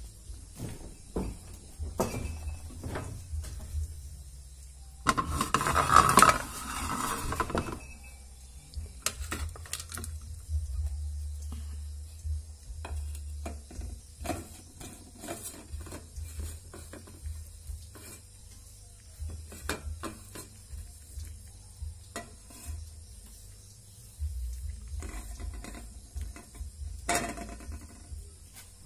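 Clatter of a plastic plate with food being scraped onto it, loudest in a burst about five to eight seconds in, then scattered small clicks and knocks as cats eat from the plate.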